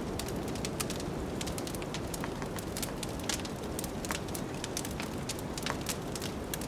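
Wood fire crackling with many irregular sharp pops and snaps over a steady rushing noise of blizzard wind.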